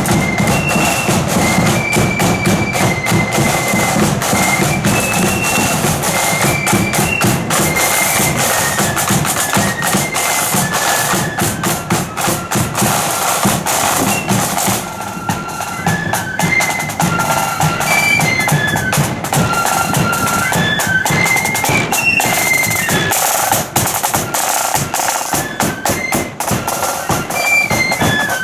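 Marching flute band playing a tune on high-pitched flutes in unison, over rattling side drums and drum beats.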